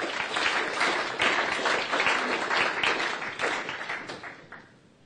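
Audience applauding, many hands clapping at once, then dying away near the end.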